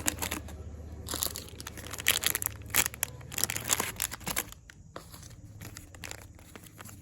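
Plastic packaging crinkling and rustling as it is handled by hand to pack an order. The crackles are busiest and loudest for the first few seconds, then turn softer.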